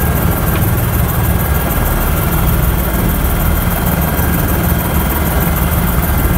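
Airbus H120 helicopter's turboshaft engine and rotor running steadily after start-up, a constant low drone with a thin high whine on top.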